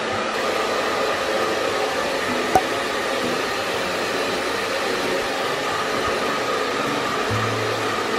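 Handheld hair dryer blowing steadily on a wet dog's coat, a constant rushing with a steady fan whine. A single sharp click about two and a half seconds in.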